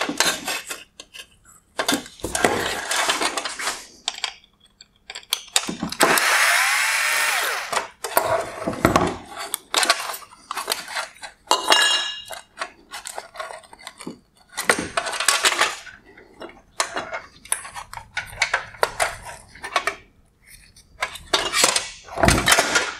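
Clicks, rattles and scrapes of plastic and chrome headlight parts being handled and pulled apart by hand. A small power tool whirs for about two seconds a quarter of the way in.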